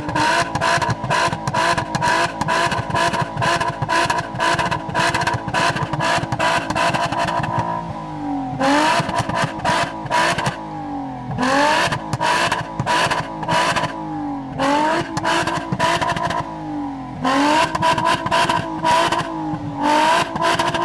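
Volkswagen Passat V6 engine, with a modified intake and exhaust, held at high revs with a rapid, regular stutter for several seconds. It then drops and is revved back up repeatedly, about four times.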